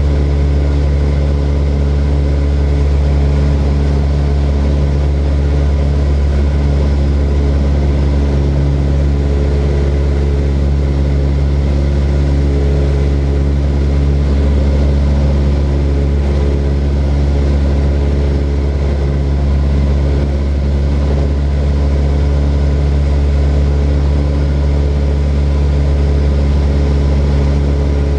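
Propeller airplane engine running steadily, a constant drone with no change in pitch or loudness.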